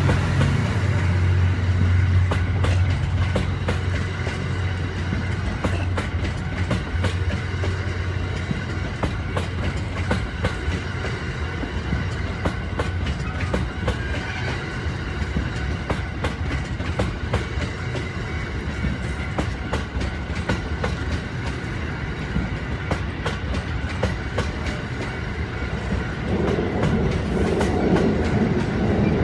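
A train of E26-series sleeper cars hauled by an EF81 electric locomotive passes close by, its wheels clacking over the rail joints. A steady low hum runs through the first several seconds.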